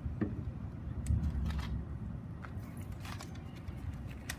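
Thin clear Mylar plastic sheet crinkling in short crackles, about half a dozen times, as a hand slides over it while tracing with a marker, over a steady low rumble.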